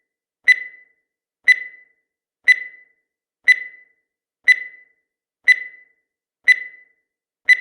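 Countdown timer sound effect: a short, sharp tick with a brief ring, repeating exactly once every second, eight times.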